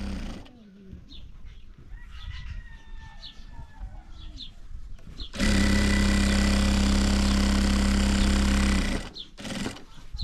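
A machine runs with a steady hum for about three and a half seconds, starting and stopping abruptly. Before it, in a quieter stretch, there are faint short chirps that sound like birds.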